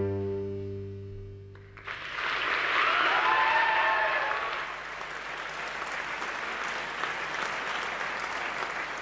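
Music fades out on a long held chord, and about two seconds in an audience breaks into steady applause.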